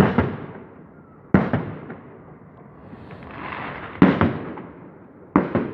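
Fireworks display: four sharp bangs of shells bursting overhead, spaced one to three seconds apart, each trailing off in a short echoing rumble.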